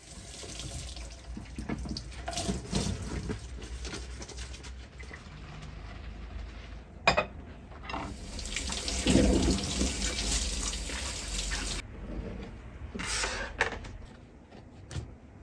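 Dishes being hand-washed in a stainless steel kitchen sink: tap water running and splashing, with a sharp knock of crockery about halfway through. The running water cuts off suddenly near the end, followed by a short splash.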